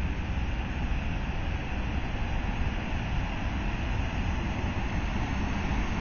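Steady rushing of a monsoon-swollen waterfall and its pool, with wind buffeting the phone's microphone into a low, fluttering rumble.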